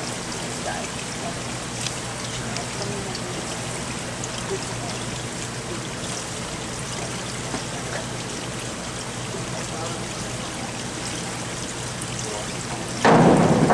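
Steady hiss of churning water from the diving pool's surface sprayers, with faint voices. A sudden, much louder burst of noise comes near the end.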